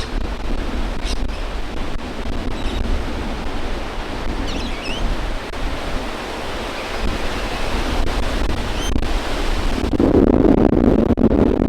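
Strong gusting wind buffeting the microphone: a steady rushing noise with a heavy low rumble, swelling louder near the end.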